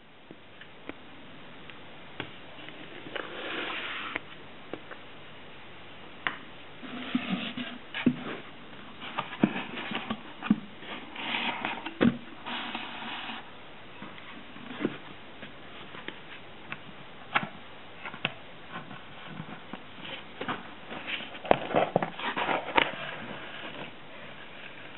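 Scattered light clicks and taps with short bursts of rustling: hands handling and working small craft materials.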